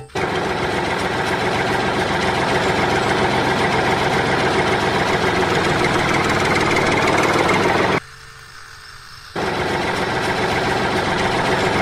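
Steady engine-like running noise as a mini toy tractor drives over sand. It breaks off for about a second and a half past two-thirds of the way through, then resumes.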